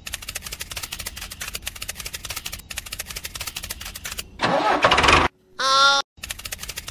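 Miniature tractor running with a rapid, even ticking putter. About four and a half seconds in, a loud rushing burst breaks in, followed by a short pitched tone, and then the ticking putter resumes.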